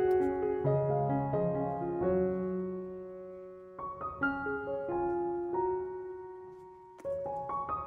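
Background music: a gentle solo piano melody, played in slow, sustained notes.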